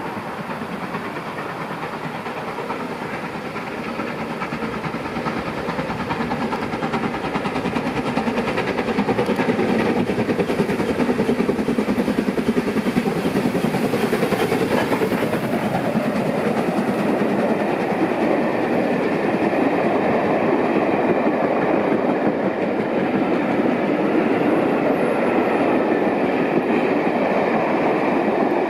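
Steam locomotive LMS Princess Coronation class 4-6-2 No. 46233 Duchess of Sutherland running through at speed with its train: the sound grows louder over the first ten seconds or so as the engine comes up and passes, then holds as a steady rumble of the coaches going by.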